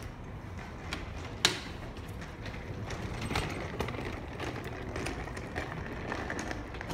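A mussel shell dropped by a herring gull strikes the wooden pontoon deck with one sharp knock about one and a half seconds in, followed by a few faint ticks, over steady outdoor background noise.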